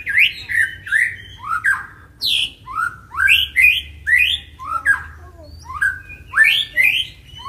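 White-rumped shama (murai batu) singing a fast run of short, sharply rising whistled notes, about two a second, with thin high ticks between them. This is the hard, aggressive fighting song.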